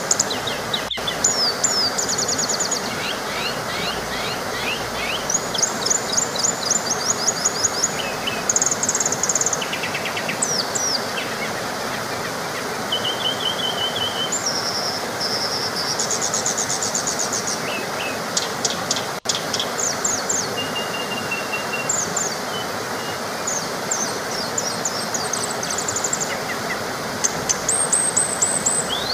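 Small waterfall rushing steadily, with songbirds chirping and trilling over it throughout. The sound drops out for an instant about two-thirds through.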